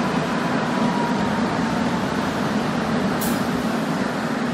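Korail commuter electric multiple-unit train running past along a station platform: a steady rumble of steel wheels on the rails, with one brief sharp click a little over three seconds in.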